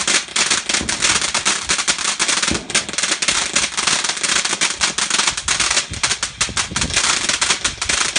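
Fireworks crackling: a dense, continuous stream of rapid sharp pops like a string of firecrackers.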